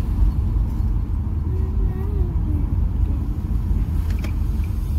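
Steady low rumble of a car's engine and tyres, heard inside the cabin while driving. A short click comes about four seconds in.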